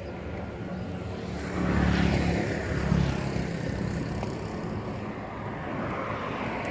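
A motor engine running, growing louder about one and a half seconds in, loudest around two to three seconds, then fading.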